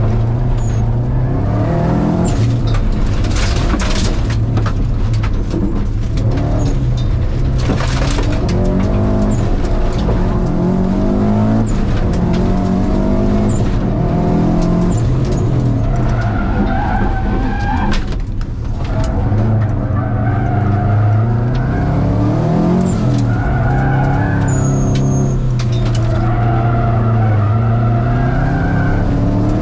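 Subaru Impreza's flat-four boxer engine heard from inside the cabin at racing pace, its note climbing and falling again and again through gear changes and corners, with a brief lift around the middle. Bursts of tyre noise on loose gravel come through about three and eight seconds in.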